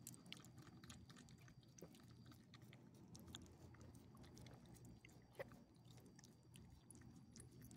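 Small dog eating from a person's open palm: faint, irregular chewing and licking clicks, with one sharper click about five and a half seconds in.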